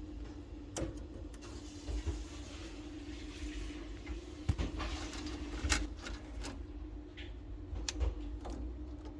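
Scattered sharp clicks and knocks of hand tools and metal parts being handled while a replacement gas valve is fitted to a combination boiler, over a steady low hum.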